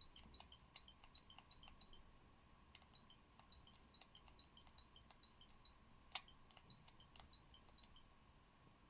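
Faint short electronic blips from the Nintendo Switch's menu, coming irregularly several times a second as the repaired Joy-Con stick is moved, with a few light clicks, the loudest about six seconds in.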